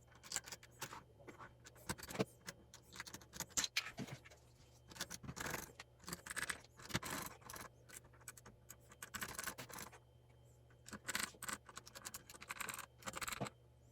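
Plastic keycaps being handled and pressed back onto the switches of a mechanical keyboard: irregular small clicks and scraping in clusters, with short pauses between them.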